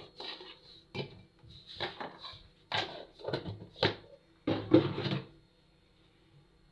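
Cooking pot and utensils clattering: a string of short knocks and clinks over about five seconds, the loudest about four and a half seconds in, stopping just after five seconds.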